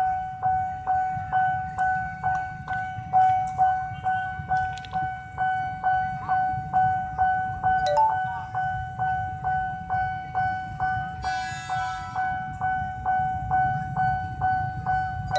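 Railway level-crossing bell ringing steadily, about two to three strokes a second, each stroke ringing briefly at the same two pitches, over a low rumble. A short two-note chime sounds about halfway through, and a brief, higher buzzy tone follows a few seconds later.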